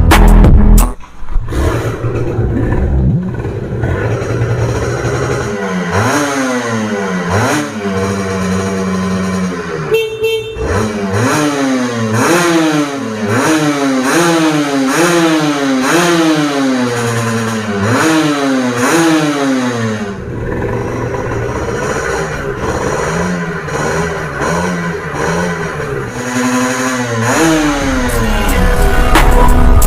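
Kawasaki Ninja 150 SS's single-cylinder two-stroke engine being revved. For a stretch in the middle the pitch rises and drops again in quick blips, about one a second, with steadier running before and after.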